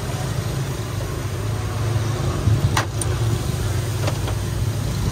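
Steady low engine rumble, with a sharp click a little under three seconds in and a fainter one about a second later.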